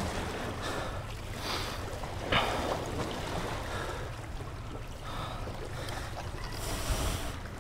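Small waves lapping and splashing against jetty rocks, with wind rumbling on the microphone. There is one brief louder slap about two and a half seconds in, and a hissing swell near the end.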